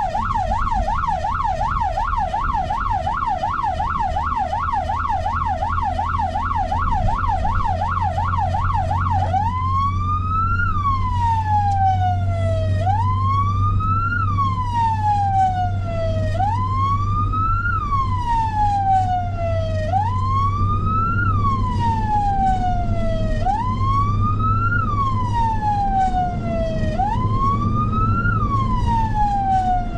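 An emergency vehicle's electronic siren sounds a rapid yelp, then about nine seconds in switches to a slower wail. Each wail cycle climbs quickly and falls away over roughly three and a half seconds. A steady low vehicle rumble runs beneath it.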